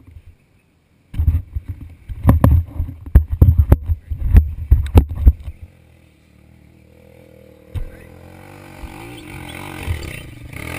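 Irregular low thumps, like wind buffeting the microphone, for the first few seconds; then a dirt bike's engine that grows steadily louder as it climbs a steep, rocky hill toward the listener, working hard under load.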